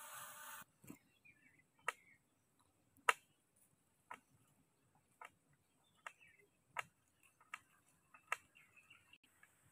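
Wood fire under a cooking pot crackling: sharp, separate pops at roughly one a second over a quiet background, while the empty pot heats.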